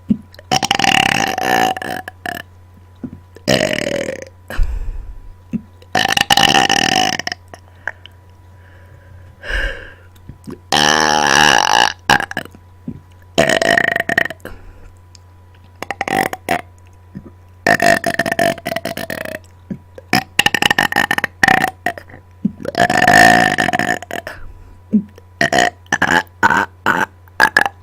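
A person burping on command, a long series of about a dozen loud belches, some drawn out, ending in a quick run of short burps.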